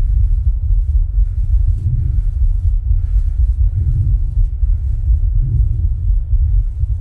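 Amplified heart sounds recorded while rebreathing from a plastic bag: a loud, steady low rumble, with a fainter, higher swell about every two seconds.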